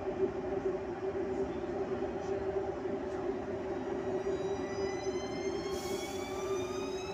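Czech Railways class 471 CityElefant double-deck electric unit starting to pull away. Over a steady hum, the whine of its traction drive begins about four seconds in and rises steadily in pitch as it accelerates. There is a brief hiss around six seconds.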